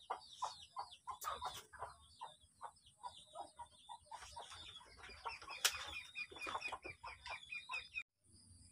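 Chickens clucking, a quick run of short calls, faint, that cuts off suddenly near the end.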